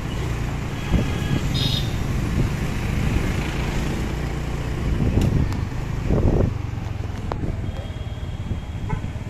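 Motorcycle engine running steadily with wind and road noise while riding through traffic. Other vehicles pass, the noise swells for about a second around the middle, and a short high beep sounds early on.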